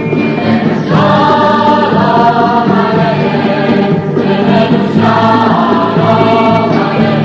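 Music: a choir singing long held notes over a steady low accompaniment.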